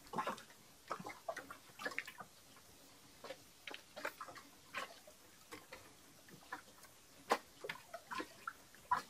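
Faint, scattered light clicks and knocks at an uneven pace, with one sharper knock about seven seconds in.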